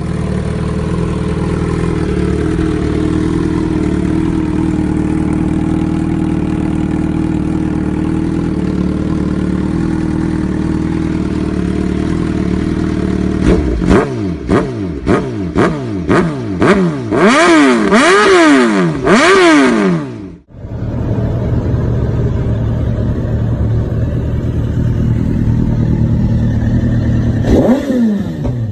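Suzuki GSX-R1000 K7/K8 inline-four with an aftermarket exhaust idling steadily. About halfway through, the engine is blipped in a quick string of throttle revs, the last ones held higher and longer. After a sudden break, an idle resumes, with one more rev near the end.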